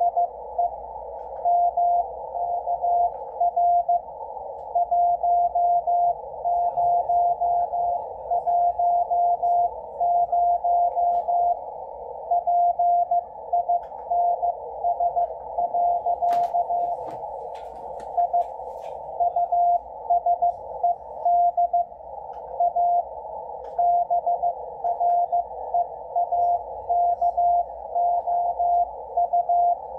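Morse code from W1AW's ARRL bulletin received on 80 metres by a Yaesu FTdx10: a keyed tone of about 700 Hz sending dots and dashes over hiss that a 500 Hz filter narrows to a band around the tone. A few brief clicks come about halfway through.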